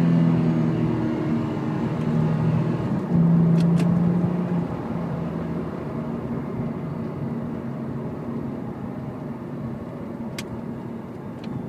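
Porsche 997's flat-six engine running at a steady speed. Its note swells about three seconds in, then slowly fades.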